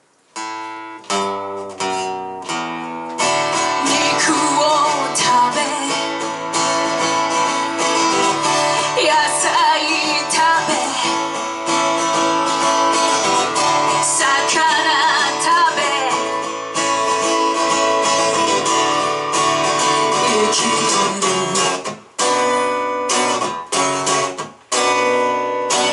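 A band playing live: a few separate strummed guitar chords, then the song starts in earnest with strummed guitar and singing, with two short stops near the end.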